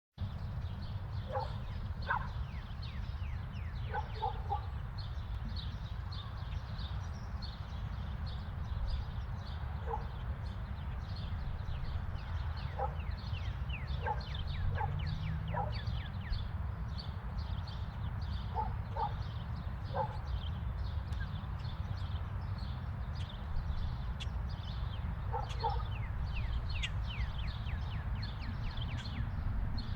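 Suburban neighbourhood ambience: a dog barking every few seconds, single and double barks, over continuous small-bird chirping and a steady low rumble.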